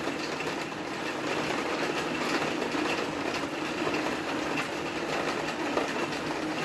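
Heavy rain drumming on a skylight overhead: a steady, dense patter of drops.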